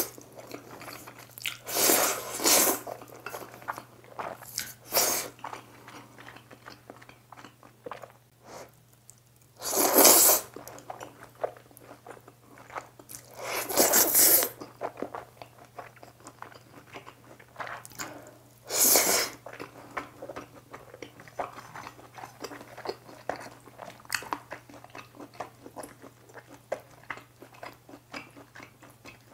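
Close-miked eating of black-bean instant noodles: about six loud, long slurps in the first twenty seconds, with wet chewing and small mouth clicks between them and after. A steady low hum lies underneath.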